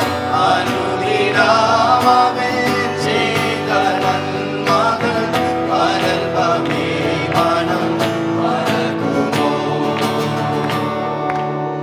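A group of men and women singing a Christian worship song together, accompanied by a strummed acoustic guitar; the song eases off near the end.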